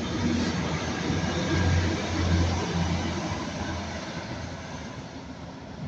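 Train passing: a low rumble that builds to its loudest about two seconds in and then fades away.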